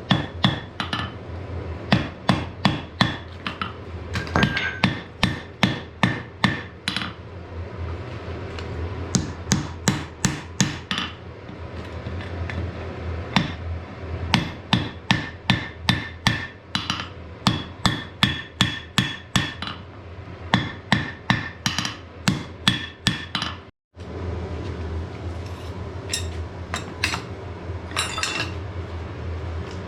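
Blacksmith's hammer striking iron on an anvil in runs of blows, about two a second, each blow with a ringing note, with short pauses between the runs.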